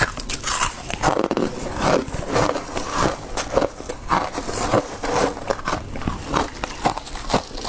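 Freezer frost built up by a humidifier being bitten and chewed, in irregular crunches about two a second.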